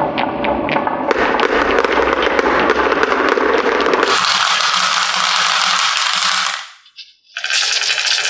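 Marbles rolling and clattering down a wooden HABA marble-run track, a dense rattle of rapid clicks. The sound changes abruptly about a second in and again about four seconds in, and briefly fades away shortly before the end before the clattering starts again.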